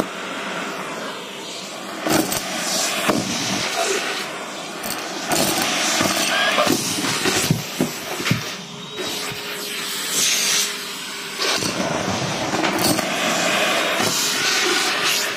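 Vacuum cleaner sucking through a metal hose, pulling up small buttons, beads, sequins and paper scraps that crunch and click irregularly as they rattle up the metal tube.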